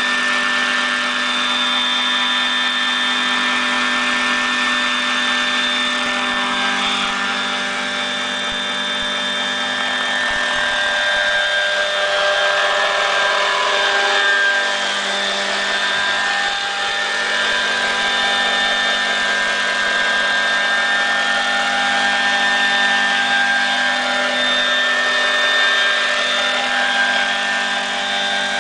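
Electric scale RC helicopter (Vario Ecureuil AS350) hovering: a steady whine from the electric motor and drivetrain with the whirr of the rotor blades. Its tones shift slightly in pitch about halfway through as it moves close by.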